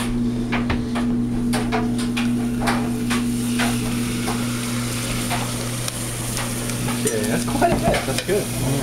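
Liquid nitrogen poured from a dewar into a cup, boiling off with a sizzling hiss and many small crackles, over a steady low hum.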